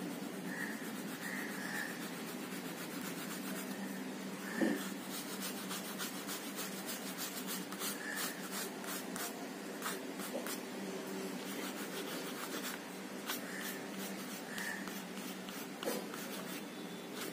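Oil pastel crayon rubbing and scratching across paper in quick, repeated strokes, laying dark colour over the engraved lines. There are two brief knocks, one about five seconds in and one near the end.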